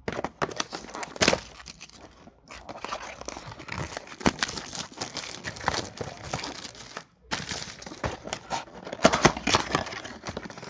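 Cellophane wrap crinkling and tearing as a Prestige football card box is unwrapped and its cardboard opened, full of sharp crackles, with short pauses about two and seven seconds in.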